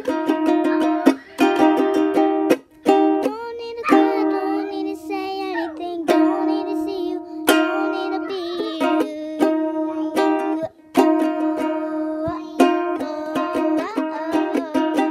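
Ukulele strummed in a steady pattern, the same chord shapes ringing over and over, with a young girl's voice singing along in places.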